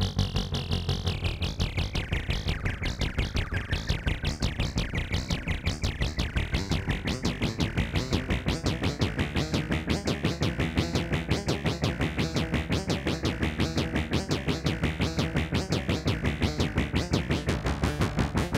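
Eurorack modular synthesizer playing a sequence of fast repeating notes, about five a second, its tone losing some brightness in the first couple of seconds.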